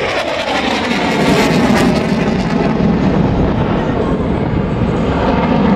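Single-engine F-16 Fighting Falcon jet flying past, its engine noise loud and steady, with a falling pitch over the first few seconds as it draws away.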